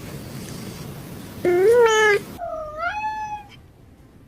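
Domestic cat meowing twice: a loud call of about a second, then a slightly quieter one that dips and rises in pitch.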